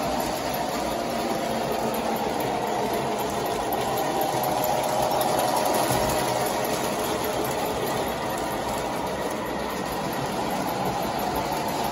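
O-gauge model trains running on three-rail track: a steady whirr of electric motors and gears with wheels rumbling over the rails. The sound is a little louder about halfway through as the Lionel postwar 681 turbine locomotive passes close by.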